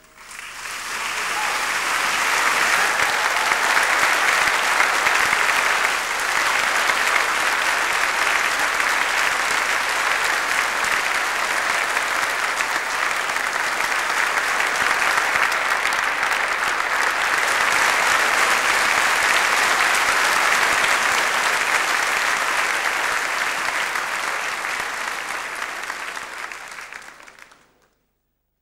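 Large audience applauding. The clapping swells in over the first couple of seconds, holds steady, then fades and cuts off abruptly near the end.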